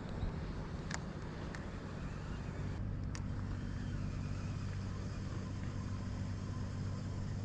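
A motor's steady low hum, growing a little stronger about a third of the way in, with a few light clicks over it.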